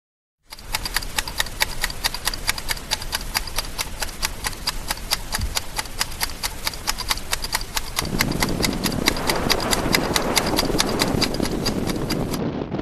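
Regular clip-clop beat, about four sharp strokes a second, each with a light bright ring. A rushing noise joins about two-thirds of the way through, and the beat stops abruptly near the end.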